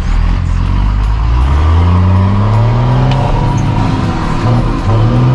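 Mercedes-Benz 1620 dump truck's diesel engine with a straight-through exhaust, pulling hard and loud with its pitch rising steadily. About four and a half seconds in the revs drop for a gear change, then climb again.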